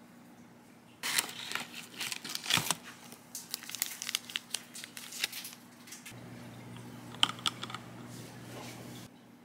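Foil-lined wrapper of a Ghirardelli dark chocolate square crinkling and tearing as it is peeled open by hand: a dense run of crackles from about a second in until about six seconds, then a few lighter clicks near the end.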